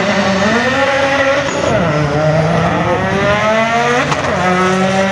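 Drag car engine accelerating hard, its pitch climbing through the gears with two upshifts, about two and four seconds in.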